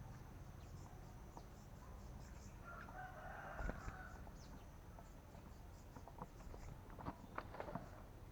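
A rooster crows once, faintly, about three seconds in, over scattered short high chirps.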